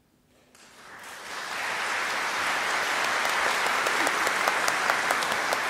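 Audience applause at the end of a performance: after a brief hush, clapping starts about half a second in, swells over a second or so, then holds steady and full.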